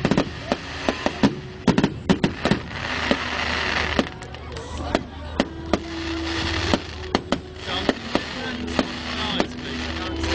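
Fireworks going off: a quick run of sharp bangs and crackles in the first couple of seconds, then sparser pops with stretches of hissing between them.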